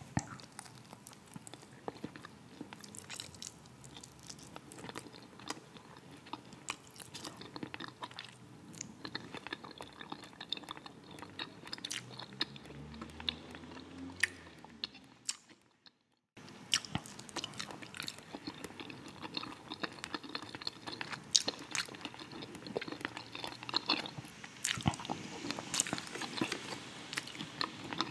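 Close-miked chewing and mouth sounds of someone eating a dinner of fried fish, potatoes and red cabbage, with many small wet clicks and smacks. The sound cuts out completely for under a second just past halfway.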